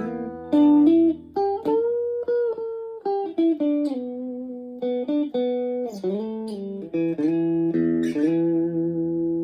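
Chapman ML1 Strat-style electric guitar played through a Blackstar HT-1R valve amp on a clean setting: a single-note lead line with string bends and slides, ending on a long held note.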